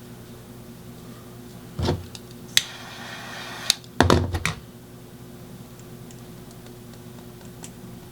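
Typewriter cases being handled and set down: a knock about two seconds in, a short scrape between two sharp clicks, then a cluster of knocks and clicks about four seconds in, over a steady low hum.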